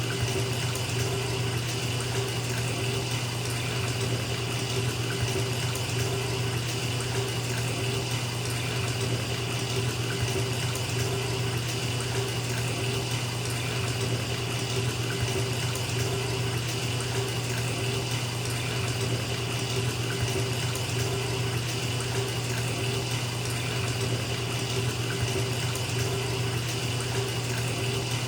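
Bathtub filling from a running tap: a steady rush of water pouring into the tub.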